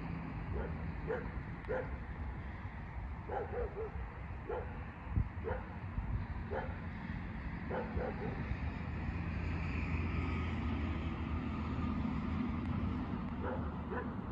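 An animal's short calls, about a dozen spread unevenly, some coming in quick pairs, over a steady low rumble.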